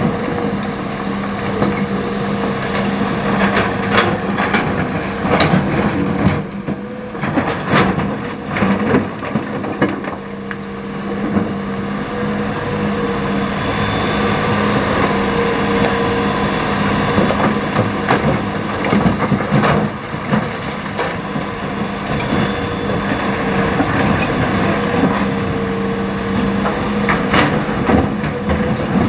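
Hitachi ZX200 hydraulic excavator's diesel engine running steadily while its steel bucket scrapes through river stones, with repeated knocks and clatters of rock against metal.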